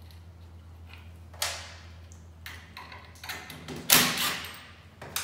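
Cordless drill-driver run in short bursts, driving screws into the metal hub of a ceiling fan. The loudest burst comes about four seconds in, with a shorter one about a second and a half in and small ones in between.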